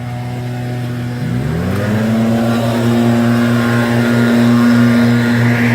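A landscaping machine's small engine running steadily, then revving up about a second and a half in and holding at the higher speed. It grows louder as the machine comes closer.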